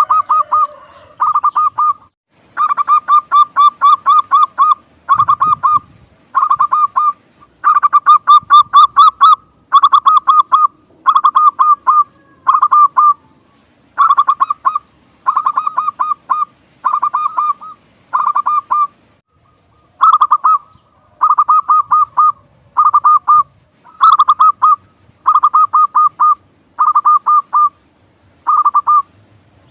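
Zebra dove (perkutut) cooing: short bursts of rapid, stuttering notes, repeated about once a second with brief pauses between.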